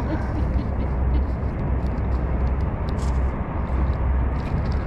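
Wind buffeting the microphone: a steady low rumble with a rushing hiss, and a few faint ticks.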